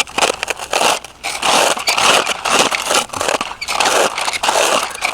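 Plastic toy backhoe (Bruder JCB) ripper scraping and crunching through dirt in a series of short, irregular strokes.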